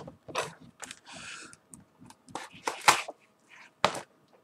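Cardboard parcel being handled on a wooden tabletop: its clear plastic wrapping rustles and the box knocks and scrapes on the table. The noises are short and irregular, with the sharpest knocks about three and four seconds in.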